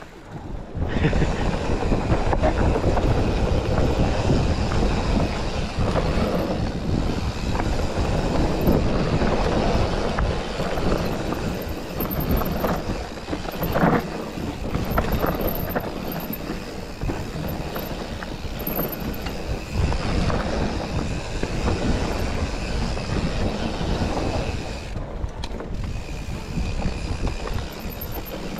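Mountain bike riding fast over a rough forest trail: a continuous rattle and clatter of the bike over roots and stones, with tyre and wind rumble, starting about a second in and with one sharper knock about halfway through.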